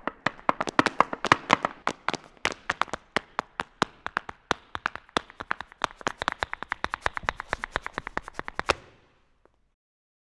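Folklórico dancers' heeled boots striking hard pavement in rapid zapateado footwork: many sharp taps, about six a second and unevenly accented. The taps stop about nine seconds in.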